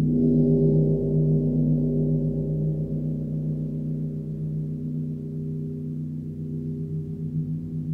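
Large gong tuned to G#1 (51.91 Hz), softly struck with a felt-headed mallet: it swells about half a second in, then rings on as a hum of several overlapping low tones that slowly fade.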